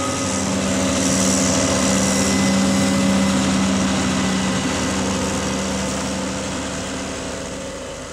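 Large diesel farm machinery at maize harvest, running steadily with a strong engine drone and a hiss; it fades away over the last few seconds.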